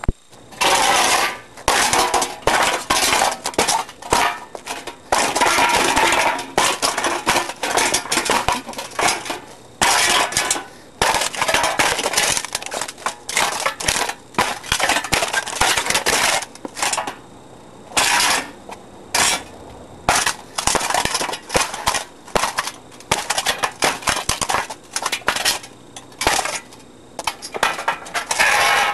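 Metal clattering and rattling in repeated bursts of a second or two as a Galaxy box fan is smashed apart.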